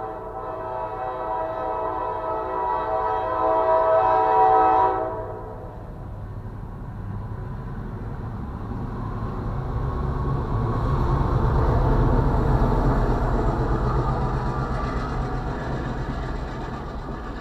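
Freight train's air horn sounding a steady chord, growing louder, that cuts off about five seconds in. Then the diesel locomotive passes with a heavy low rumble, loudest around the middle, followed by double-stack intermodal cars rolling by.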